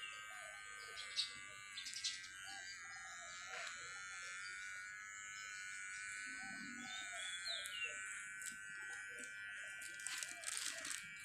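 Electric hair clippers running with a steady high buzz as they cut through hair. A bird gives a short falling chirp past the middle, and there are a few brief crackles near the end.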